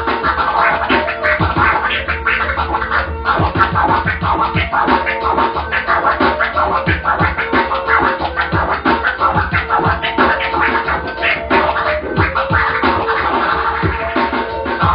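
DJ scratching a record on a turntable in rapid, back-and-forth strokes over a backing music track.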